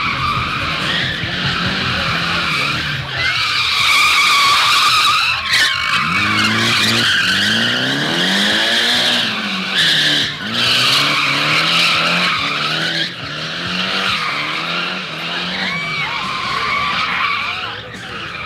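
Nissan S13 drift car's rear tyres screeching in repeated swells as it flicks side to side through the cones, the rear tyres almost bald. Its turbocharged SR20DET four-cylinder revs up and down beneath the screech.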